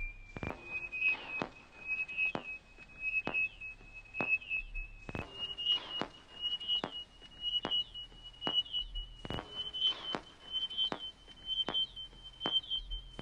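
Electronic scanner-style pulsing from a film soundtrack: a steady high tone with a short chirping beep and a sharp click about once a second. The tone steps up in pitch three times, and the pulses come gradually faster.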